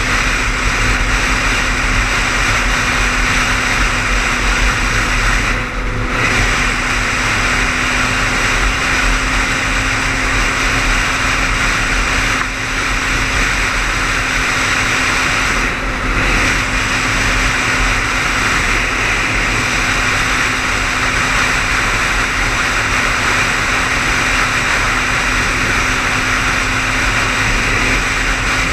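Car driving at highway speed: steady tyre and wind noise with a low, even hum, dipping briefly three times.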